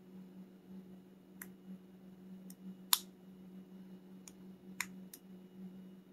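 Lock pick and tension wrench working in the keyway of an American Lock A1100 five-pin padlock: about six small, sharp metal clicks, one just before the middle much louder than the rest, over a steady low hum.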